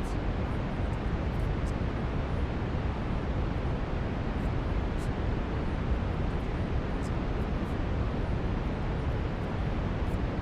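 Steady brown noise: an even, deep rushing hiss, heaviest in the low end, holding the same level throughout.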